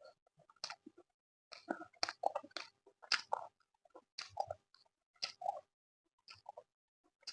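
Close-miked chewing of a mouthful of chicken curry with rice and naan: irregular short smacks every half second to a second, with a brief pause near the end.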